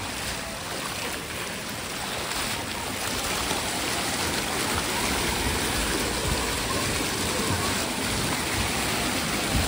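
Steady rush of running water from an outdoor pool's spray features pouring into shallow water, a little louder from about three seconds in.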